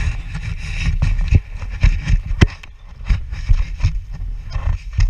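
Wind buffeting the action camera's microphone with a gusting rumble, and irregular thumps of footsteps and knocks on the camera pole as a tandem paraglider pair lands and runs out on grass.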